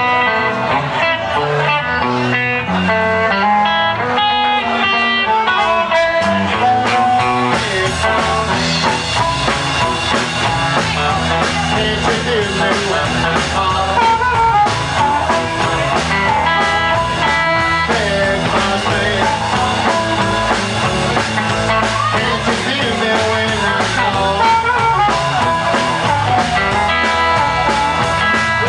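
Live electric blues band playing a shuffle: electric guitars, a drum kit, and an amplified blues harmonica played with cupped hands.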